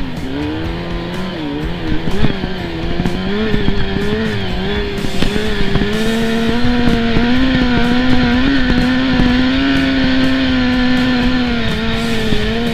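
A 600cc ATV engine running under throttle while riding across snow. Its pitch rises and falls over the first few seconds, with some knocks around two seconds in, then holds fairly steady and climbs a little for the rest.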